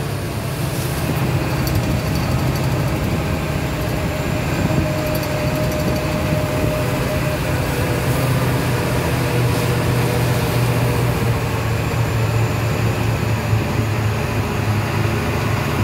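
Monster-truck ride vehicle's engine running steadily as it drives along, heard from its open passenger deck, with a constant low drone.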